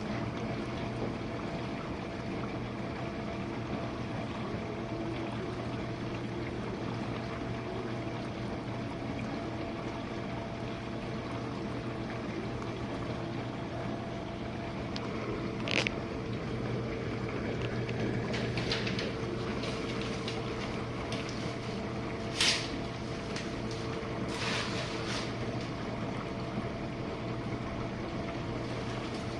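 Jenn-Air dishwasher running a quick wash cycle: steady water rushing inside the tub over a constant motor hum. A few short sharp clicks come through it, the loudest about 16 and 22 seconds in.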